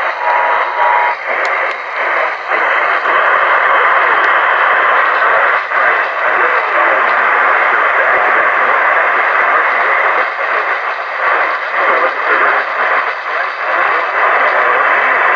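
Radio broadcast of an Emergency Alert System flash flood warning: the two-tone attention signal ends about a second in, followed by a loud, steady hiss of noise with a voice partly buried in it.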